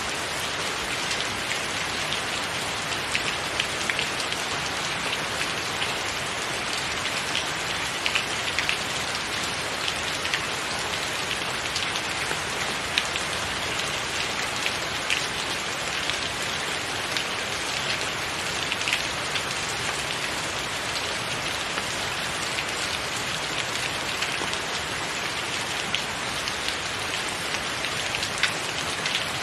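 Steady rain: an even hiss with many close, separate drop taps scattered through it.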